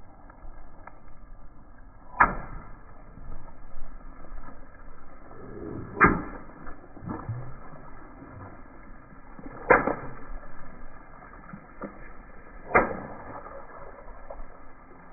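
Water balloons bursting one after another under a slowly rolling car tyre: four sharp pops, about three to four seconds apart, with water splashing.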